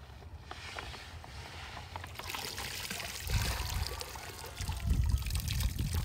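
Pond water sloshing, then trickling and pouring as a perforated scoop of azolla is lifted out and drains back into the pond. The sound grows louder about two seconds in, with low bumping surges later on.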